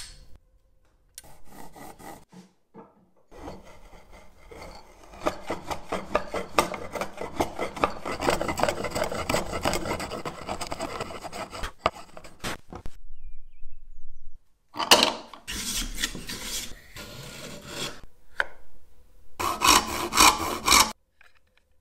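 Steel cutter of a fenced hand grooving tool scraping along a wooden board as it cuts a groove: runs of quick rasping strokes, the longest in the middle, then two shorter runs with pauses between.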